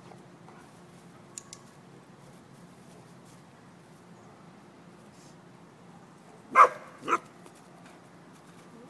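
A dog barks twice, two short sharp barks about half a second apart, while jumping up at its trainer for treats. A faint double click comes earlier.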